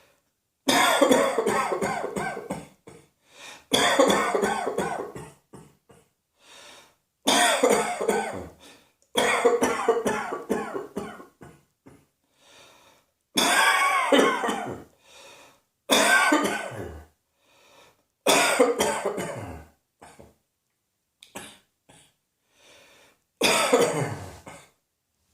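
A person coughing in about eight fits, each a run of several quick coughs lasting one to two seconds, with quieter short coughs and breaths in the gaps between.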